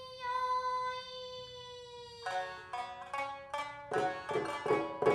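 A female hauta singer holds one long note that sinks slightly in pitch. A little after two seconds a shamisen comes in with plucked notes, sharper and busier near the end.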